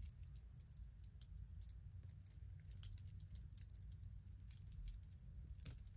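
Faint, scattered light clicks and rattles of costume jewelry being handled: a tangled necklace's chain and beads clinking as it is picked through, with one sharper click near the end.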